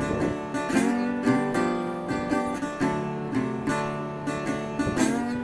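Background music: strummed acoustic guitar chords ringing on.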